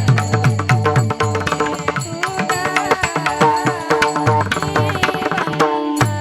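Marathi devotional kirtan music: a hand drum keeps a quick, steady beat with small cymbals clicking, over held tones and a wavering melody. The drumming drops out near the end while a held tone continues.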